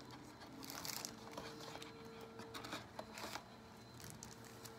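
Plastic packaging of a catheter kit crinkling and rustling as it is handled, in a few short bursts.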